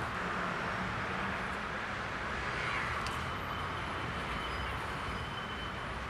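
Steady urban background noise: a hum of distant city traffic, with no distinct events.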